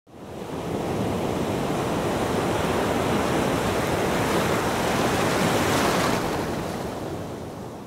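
A steady rushing noise, like surf, that swells in over the first second, holds, and fades out from about six seconds in.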